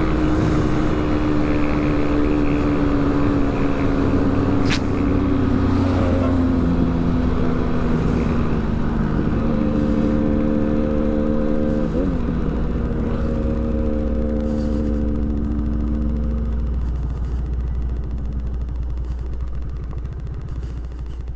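Motorcycle engine running while riding, its note sinking slowly, then shifting and holding before fading away near the end as it eases off. A steady low wind rumble on the microphone runs under it.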